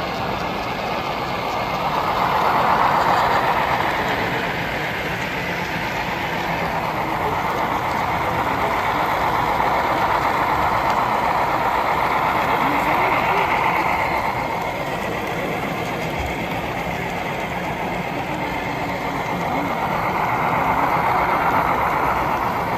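HO scale Union Pacific diesel model train running along layout track: a steady rumble of wheels and motor that swells three times, about three seconds in, in the middle, and near the end.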